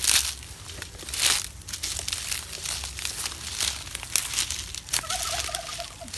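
Dry leaves, twigs and fern fronds crackling and rustling underfoot and against bodies as people push through dense undergrowth. There are two louder crunches in the first second and a half.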